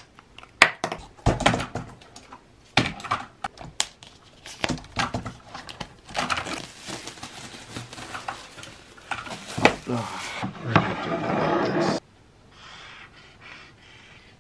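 Small objects being handled and set down on a desk: a run of sharp knocks, clicks and rattles, with a longer rustle near the end. About twelve seconds in the sound drops suddenly to the faint scratch of a permanent marker drawing on canvas.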